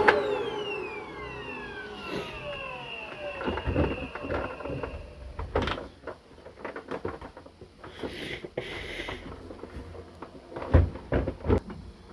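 Arçelik vacuum cleaner motor switched off with a click and winding down, its whine falling in pitch over about four seconds. Scattered clicks and knocks from handling follow, with one loud knock near the end.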